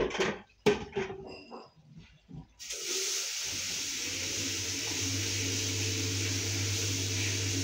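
A small bin knocks against a bathroom sink a few times. About two and a half seconds in, a tap comes on and runs water steadily into the bin, with a low hum under the hiss.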